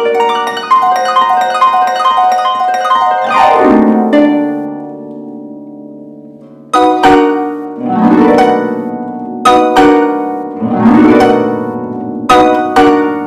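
Concert harp being played: a quick run of plucked notes, a sweeping glissando about three and a half seconds in that is left to ring and fade, then loud plucked chords and more sweeping glissandi from about seven seconds in.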